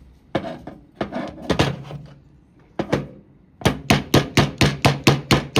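Clicks and knocks of Ruger 10/22 parts being handled, then a quick even run of about nine sharp taps, roughly four a second, as the polymer pin is worked back into place.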